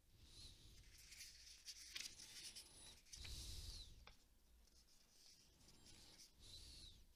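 Near silence: faint rustling and small clicks close to the microphone, with a soft hiss swelling up about every three seconds.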